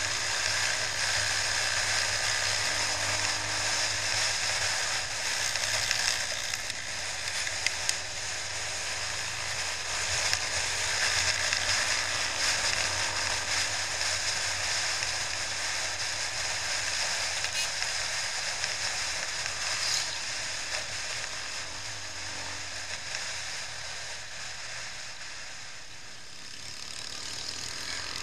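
Wind rush and road noise on a helmet-mounted camera at riding speed, with a faint low motorcycle engine hum that wavers in pitch underneath.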